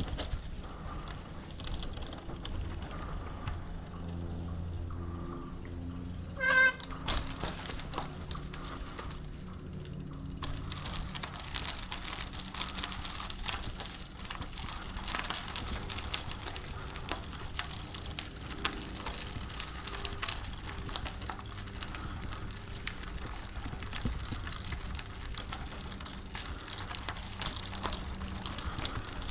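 Bicycle rolling along, with tyre noise on a dirt trail and steady small rattles and clicks from the bike. A short, bright ring sounds once about six and a half seconds in.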